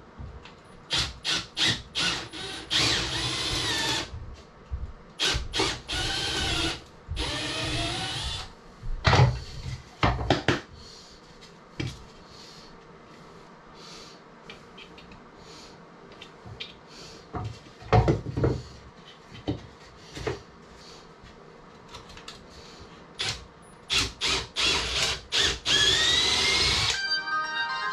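Hand-held power tool running in short bursts of a second or two, its motor whine rising and falling in pitch. Sharp knocks of wood come between the bursts, with a quieter stretch in the middle.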